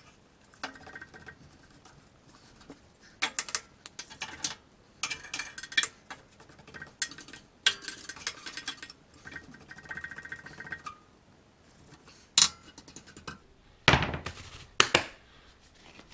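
Irregular metal scraping and clinking as old gasket residue is scraped off a wood stove's catalyst housing, in short strokes, with a few sharp knocks near the end.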